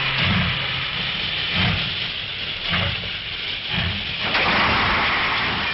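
Steam locomotive letting off hissing steam, with four slow low chuffs about a second apart, then a steady hiss.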